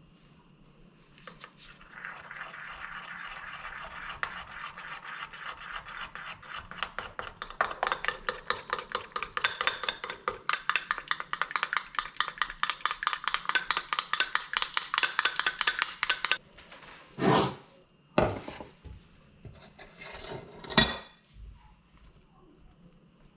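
Metal spoon stirring a thick sauce of mayonnaise, hot sauce and honey in a small ceramic bowl: a steady scraping, then quick rhythmic strokes against the bowl at several a second for about nine seconds. Then a few separate loud knocks as things are set down on the counter, the loudest near the end.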